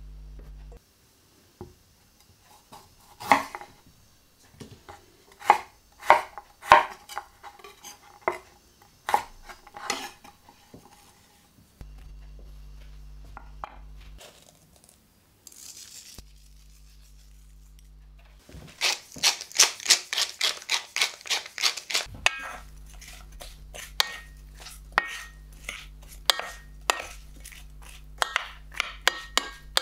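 Sliced bell peppers, garlic and spring onion being added to a cast iron skillet and stirred with a wooden spatula: scattered sharp knocks and clicks, a dense run of quick clatter about two-thirds of the way through, then steadier stirring clicks.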